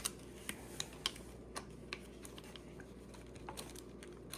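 Light, irregular clicks and taps of small hardware against plastic, about a dozen over four seconds: a bolt being worked through a tow strap and aluminium spacer into a threaded block seated in a plastic subframe.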